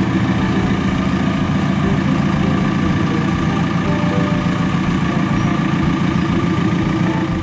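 Diesel engine of a JCB telescopic wheel loader running steadily.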